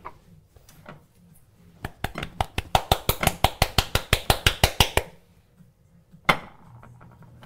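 A spoon clinking rapidly against dishware, about eight clinks a second for some three seconds, then one sharper clink.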